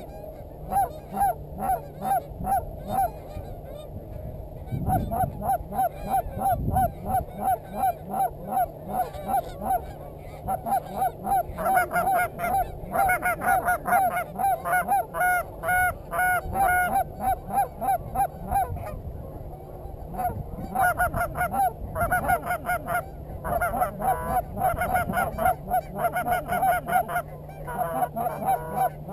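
Canada goose honks and clucks in fast, loud repeated series, coming in bursts with brief lulls about four seconds in and again around the middle.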